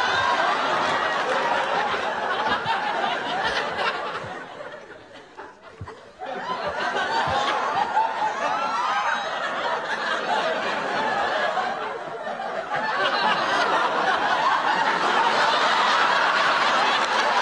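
Studio audience laughing, dying down briefly about five seconds in and then swelling again.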